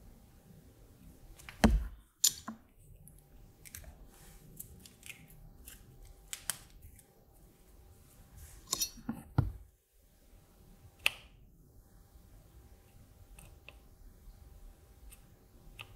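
Light, scattered clicks and taps of hand-soldering work: a printed circuit board, soldering iron and solder wire being handled on a cutting mat, with two louder knocks about 2 s and 9 s in.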